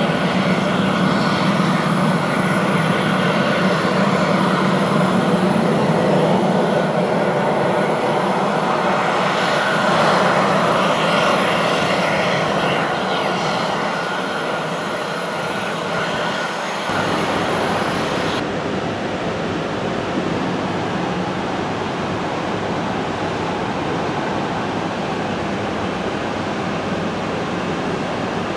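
Jet airliner engines running, a loud steady roar that starts abruptly and changes character about seventeen seconds in.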